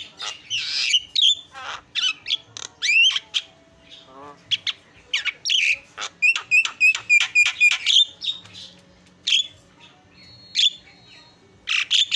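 Javan myna (jalak kebo) in full, varied song: quick whistles, harsh squawky notes and chirps one after another, with a fast run of repeated notes about halfway through and a short pure whistle near the end.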